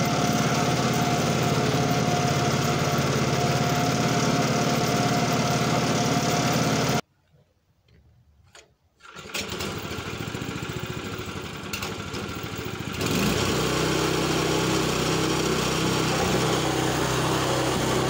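Homemade bandsaw mill's 8 hp Harbor Freight single-cylinder gasoline engine running steadily at speed. The sound drops out for about two seconds. It then comes back quieter and speeds up again with a short rise in pitch about two-thirds of the way through, as the mill is worked along a log.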